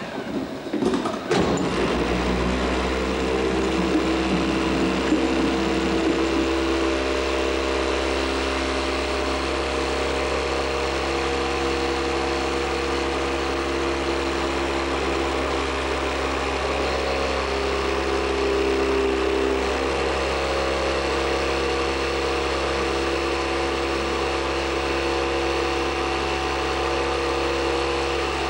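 A short clatter of knocks, then a small geared electric motor starts about two seconds in and runs steadily, slowly raising a wooden lever arm of the machine.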